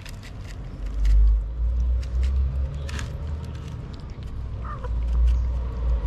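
Kittens and a cat chewing and lapping wet cat food from a plate: a scatter of small wet clicks over a low rumble on the microphone, which swells about a second in and again near the end.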